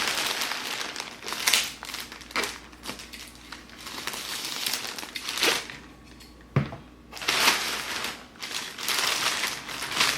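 Packaging crinkling and rustling in irregular bursts as a mailer package is torn open and unwrapped by hand, with a single knock about six and a half seconds in.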